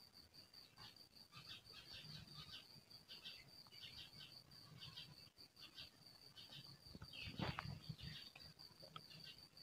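Faint outdoor ambience: a steady, high, pulsing insect buzz with scattered bird chirps over it. A brief louder noise comes about seven and a half seconds in.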